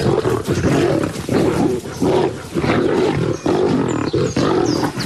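A pride of lions growling and roaring in a continuous, surging squabble over a kill as they fight for the carcass and tear it apart.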